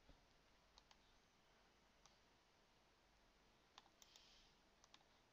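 Near silence with a few faint, scattered clicks of a computer mouse, some in quick pairs.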